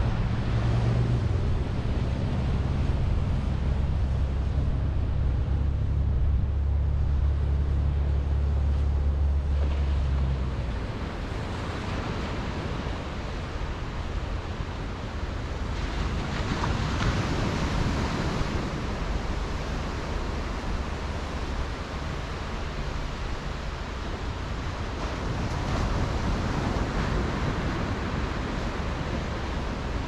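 Small waves breaking and washing up a sandy beach, the hiss swelling and fading as each wave comes in. A low rumble underneath stops abruptly about ten seconds in.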